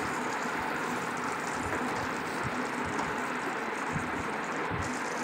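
Chicken curry sizzling and simmering in a pan on the stove: a steady, even hiss with a few soft low knocks as the masala is stirred in.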